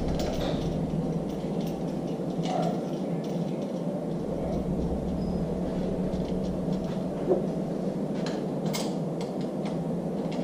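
Steady low workshop hum, with a few faint light metallic clicks as the camshaft bolt is threaded by hand through the cam phaser.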